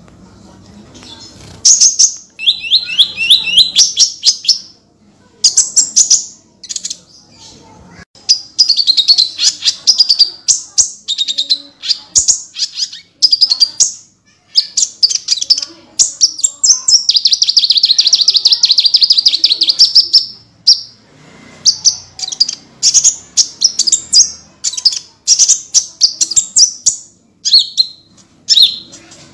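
A konin songbird singing hard in loud, rapid trills of high notes, burst after burst with short pauses, one long unbroken trill near the middle.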